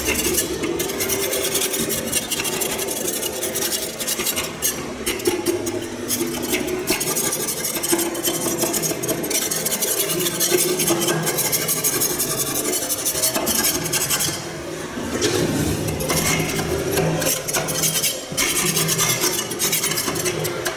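Metal spatula scraping hard encrusted deposits off a pipe's check valve fitting, a continuous rasping with irregular strokes.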